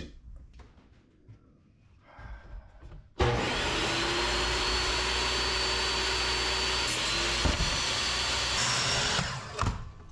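Table saw starting abruptly about three seconds in and running steadily with a high whine while cutting a mahogany board, stopping about six seconds later. Light handling knocks come before it.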